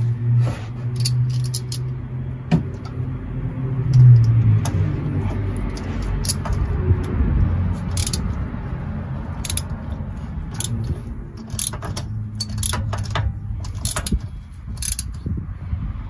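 Ratchet turning a universal oil filter wrench to loosen a spin-on oil filter, with irregular metallic clicks and clinks. A low steady hum runs underneath.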